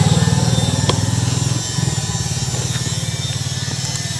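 Small motorbike engine idling with a steady, fast low putter; it drops slightly in level about one and a half seconds in.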